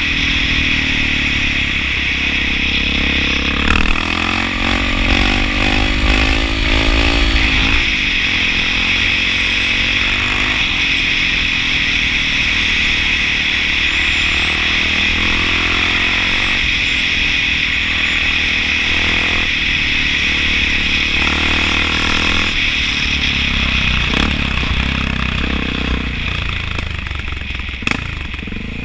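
Honda XR650L's air-cooled single-cylinder four-stroke engine running under way at road speed, its pitch rising and falling several times as the throttle and gears change.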